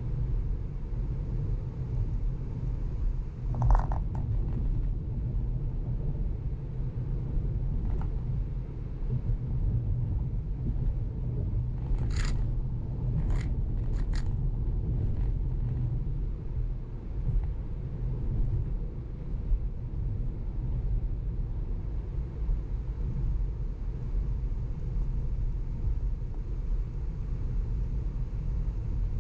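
Steady low road and tyre rumble of a Tesla electric car driving, heard from inside the cabin. A few short sharp clicks come a little before the middle.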